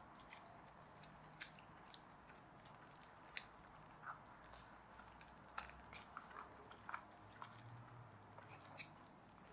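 Faint, irregular small clicks and crackles of a flat-pack pullback toy plane kit being handled, its plastic pullback motor unit pressed and fitted into the fuselage pieces, with the clicks busiest in the second half.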